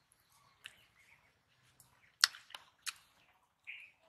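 Wet lip smacks and mouth clicks of a person chewing a mouthful of rice eaten by hand, with a few sharp smacks about two to three seconds in.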